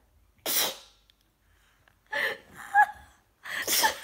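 A person sneezing, set off by kalanchoe juice dropped into the nose: a short sharp breath-in about half a second in, then more sneeze noises in the second half, the loudest near the end.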